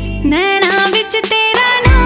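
Background music with a gliding melody line. The bass drops out about half a second in and comes back with a deep falling hit near the end.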